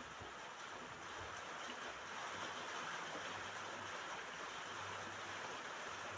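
Steady rain falling on a roof: an even, unbroken hiss of drops.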